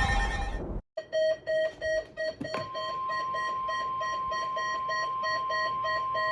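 An emergency alert siren cuts off under a second in. Then an electronic alarm beeps rapidly, about four beeps a second. About two and a half seconds in, a steady high alert tone starts under the beeping.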